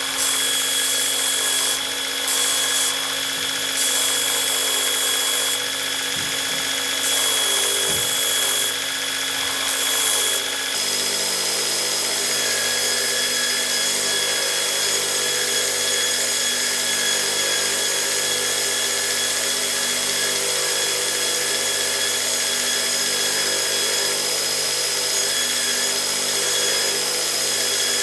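Belt grinder running with a steady motor whine, a small metal fitting pressed against the belt in repeated passes, each pass a burst of hissing grind. After about ten seconds the grinding goes on more evenly.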